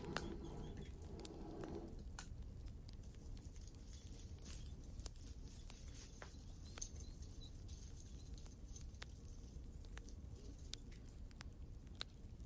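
Wood fire crackling: irregular sharp pops and clicks over a low, steady rumble. A soft rustle of handling is heard for the first two seconds or so.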